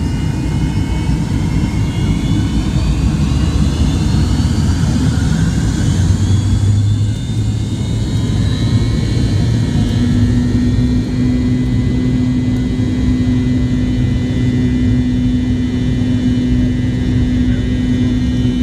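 Cabin sound of an MD-88's rear-mounted Pratt & Whitney JT8D jet engines over a steady low rumble: a whine rises over the first half as the engines spool up, then holds steady with a low hum joining about halfway through.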